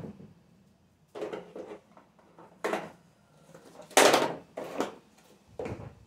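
Kitchen containers and cookware being picked up and set down on a shelf: a series of about five short knocks and clatters, the loudest about four seconds in.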